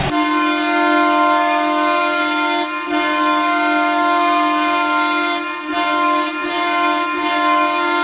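Ottawa Senators' goal horn: one long, steady air-horn blast on a single chord, wavering briefly a few times.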